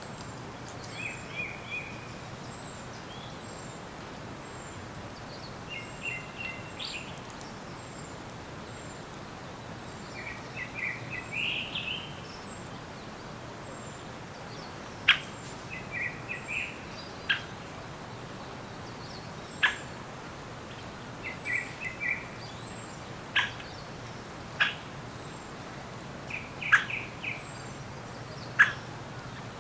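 Forest birds singing over a steady low background hiss: one bird repeats a short song phrase about every five seconds, and from about halfway through another gives sharp, quick downward-sweeping calls, with faint high chips early on.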